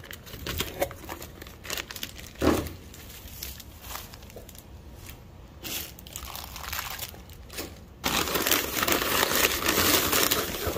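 A plastic zip-lock bag crinkling in the hands, with scattered small clicks. About eight seconds in, loud, continuous rustling and crumpling of kraft packing paper begins as it is pulled about inside a cardboard box.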